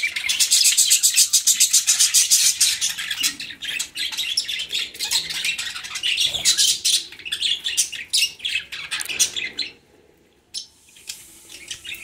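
Budgerigars chirping in quick, harsh repeated calls, densest in the first few seconds, then scattered, with a short lull about ten seconds in.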